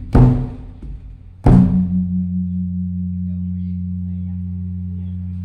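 Large temple signal drum, the evening drum beaten to announce a Buddhist holy day or its eve. It is struck twice in the opening second and a half, and the second stroke is followed by a long, steady, low humming ring.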